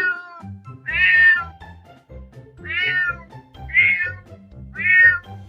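Domestic cat meowing repeatedly, four short separate meows after one that trails off at the start, over background music.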